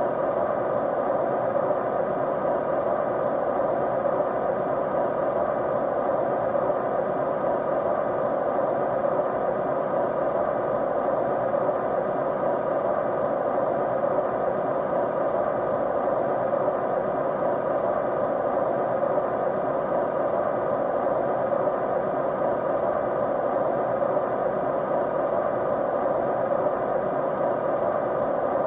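Steady white noise: an even, unchanging whooshing hiss, strongest in the middle range, with faint steady hum tones underneath.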